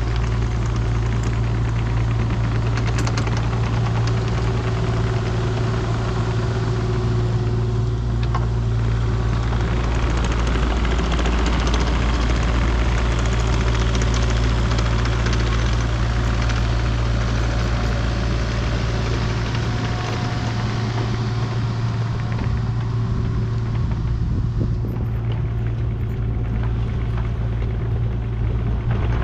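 Diesel engine of a compact construction machine running steadily under work, a constant low drone with mechanical noise over it.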